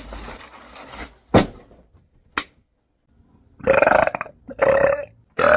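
A woman burping loudly three times in quick succession, rough and throaty, after some rustling and two sharp clicks.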